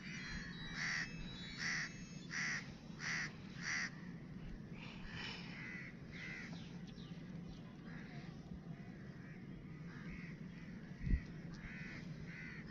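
Crow cawing: about six loud caws roughly two-thirds of a second apart in the first four seconds, then fainter, scattered caws. A single sharp thump near the end is the loudest sound, over a steady low hum.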